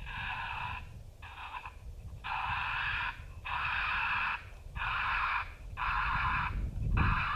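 Raccoon squall sound played from a FOXPRO electronic predator caller to bring raccoons in: a string of about seven raspy squalls, each under a second long, coming roughly once a second.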